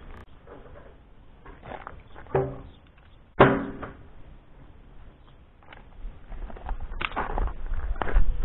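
Scattered knocks and clunks of hands working on a motorcycle's bodywork as screws and panels are refitted. The loudest is a sharp knock about three and a half seconds in, and a low rumble with a few more knocks comes near the end.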